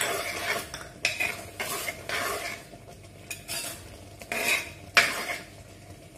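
Metal spoon stirring and scraping through thick, boiling rice-and-cowpea jaggery porridge in a large metal pot. A quick run of scrapes comes first, then a pause, then two more strokes near the end.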